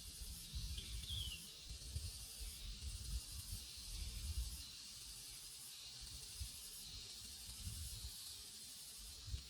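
Forest insect chorus: a steady high-pitched buzzing hiss that swells and dips in slow pulses, over an uneven low rumble, with a short chirp about a second in.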